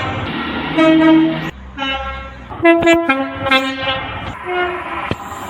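Train horns sounding about five short blasts of differing pitch, several notes at once, some broken off abruptly, over a low rumble from the train.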